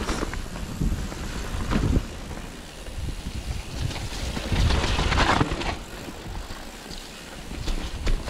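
Mountain bike riding down a wet dirt trail: tyre noise and the bike rattling over roots and bumps, with wind buffeting the microphone. A louder stretch of noise comes about five seconds in.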